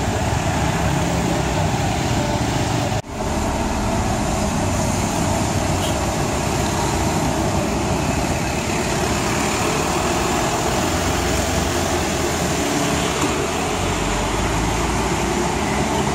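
City street traffic: motorcycles and a city bus running past, a steady wash of engine and road noise, with a brief break about three seconds in.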